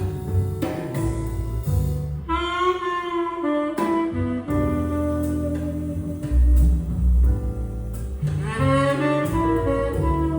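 Instrumental jazz played back through Thiel CS 2.2 loudspeakers: a saxophone plays long held phrases over a walking double bass after the last sung line.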